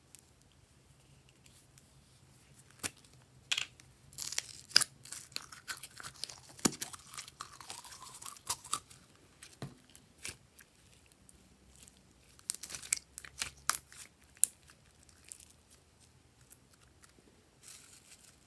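Close-up handling noises from slime-making: crunching and crinkling with sharp clicks and taps from small plastic containers and add-ins, busiest in two spells about four and twelve seconds in.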